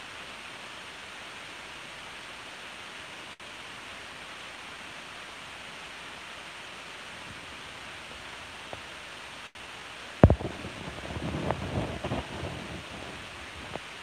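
Raccoon clambering on a wooden chair and a hanging metal bird feeder: a sharp knock about ten seconds in, then a couple of seconds of scraping and clattering, over a steady hiss.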